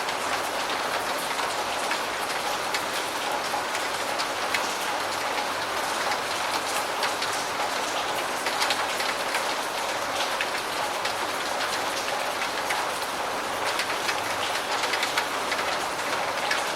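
Steady medium rainfall, a dense even patter of drops hitting surfaces.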